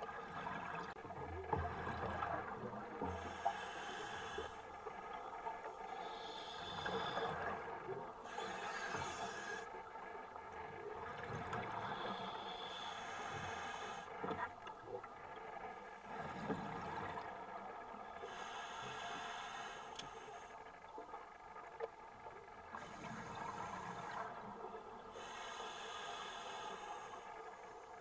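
Scuba diver breathing through a regulator underwater: a hissing breath comes and goes every few seconds, with bubbly rumbling from the exhaled air in between.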